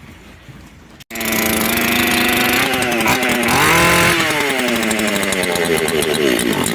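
Makita EA3202S chainsaw's two-stroke engine comes in suddenly about a second in and runs, rising in pitch once when revved near the middle and then falling back. It is the saw starting and running after its fuel and return hoses were reconnected correctly; before the repair it would not start.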